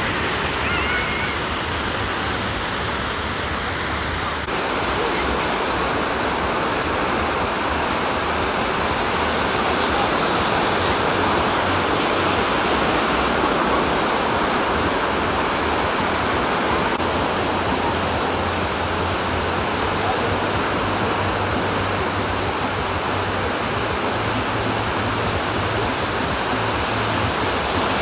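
Steady roar of surf washing up on a sandy beach, with a low rumble that comes and goes underneath.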